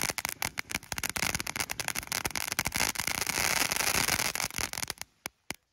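Phantom Fireworks Funky Monkey ground fountain spraying sparks with a dense crackle and hiss. It stops about five seconds in, followed by two last pops.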